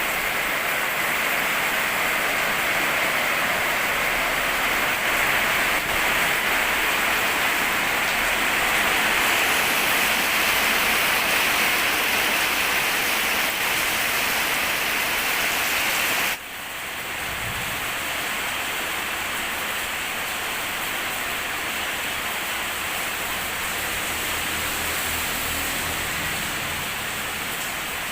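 Rain falling steadily, a dense even hiss. About sixteen seconds in, the sound drops suddenly to a slightly quieter, duller rain that carries on.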